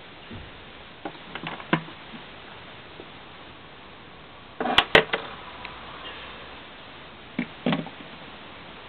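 Scattered light knocks and clicks of model horses and a small wooden toy fence being handled and set down on a shelf, with a louder pair of sharp clicks about five seconds in, over a steady low hiss.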